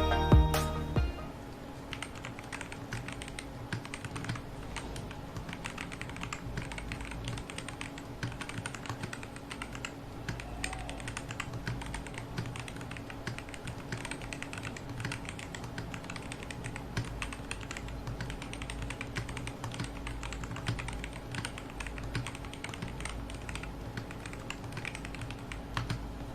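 Typing on a Keydous NJ68 mechanical keyboard with Kailh Box Red linear switches, a steel plate and a plastic case: a long, steady stream of quick keystroke clicks. Background music cuts off about a second in.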